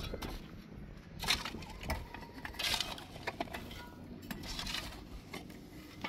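Irregular handling noise: a few short scrapes with scattered clinks and knocks between them, over a low rumble.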